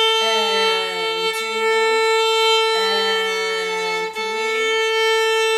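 Violin playing one steady sustained note in slow, connected legato whole bows. The bow changes direction about a second in and again just after four seconds with only a brief dip, and the sound carries on without stopping.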